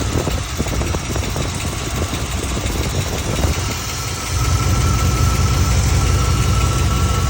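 Chevy 5.7 TBI V8 idling steadily, getting louder about four seconds in. The engine has a ticking noise the owner is chasing, which replacing the injectors has not cured.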